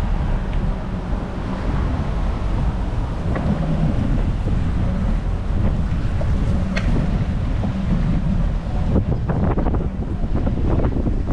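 Wind buffeting the microphone of a rider on a moving bicycle: a steady low rumble, with a few sharp clicks or knocks near the end.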